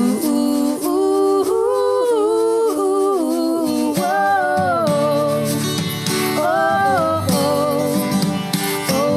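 A woman singing a wordless 'ooh' melody, holding long notes that step up and down, over acoustic guitar accompaniment.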